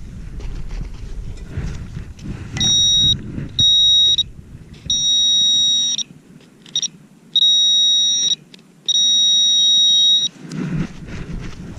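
A metal detector's pinpointing tone: a steady, high electronic beep sounding in six stretches of up to about a second and a half as the coil or probe is worked over a buried metal target. Low rustling handling and wind noise comes before it and returns near the end.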